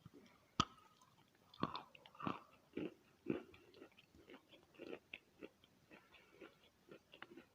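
Wet chalk being bitten and chewed close to the microphone. A sharp bite comes about half a second in, followed by an irregular run of moist crunches that grow softer in the second half.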